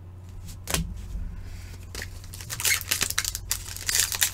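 Trading-card pack wrapper crinkling and cards clicking as they are handled: scattered sharp ticks, thickening into dense crackling from about two and a half seconds in, over a steady low hum.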